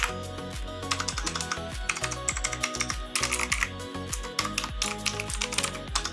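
K98 mechanical keyboard being typed on: quick, irregular key clicks, several a second, heard over background music with a steady low beat.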